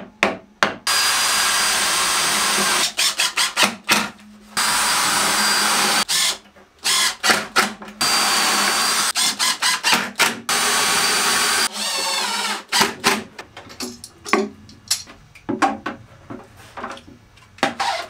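Cordless drill running into OSB cabinet panels in four steady runs of about one to two and a half seconds each, over the first twelve seconds. After that comes a string of irregular knocks and clicks.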